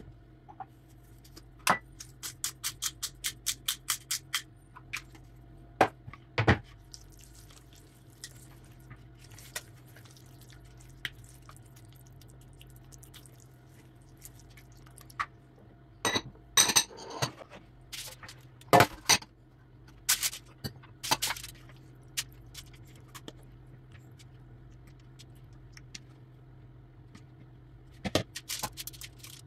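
Kitchen handling sounds: a silicone spatula stirring and scraping batter in a plastic mixing bowl, with scattered knocks and clinks. A couple of seconds in comes a quick even run of about a dozen clicks, and there are clusters of scraping and knocking in the middle and near the end.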